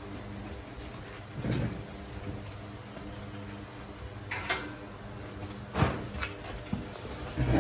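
A few scattered knocks and thuds from a young Arabian horse moving about in its stall, over a faint steady hum.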